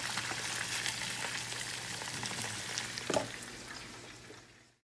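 Oxtails and beef shanks frying in oil as they brown in a pan: a steady sizzle with fine crackling pops. A short louder knock comes about three seconds in, and the sizzle then fades out near the end.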